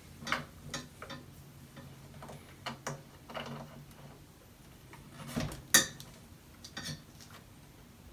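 Clamp-on monitor mount arm being adjusted by hand: irregular clicks and knocks from its joints and fittings, with a dull thump and then a sharp, loud click about five and a half seconds in.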